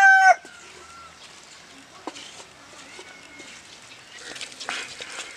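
A rooster's crow ends just at the start. Then come faint scraping and rustling as roasted whole spices and onions are scraped with a wooden spoon from a blackened pot into a stone mortar, loudest about four to five seconds in.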